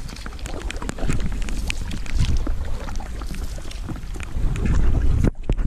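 Heavy wind buffeting the microphone of a camera held in a canoe, with many sharp ticks scattered throughout from rain striking the camera and boat. The rumble swells about five seconds in, then drops away sharply just before the end.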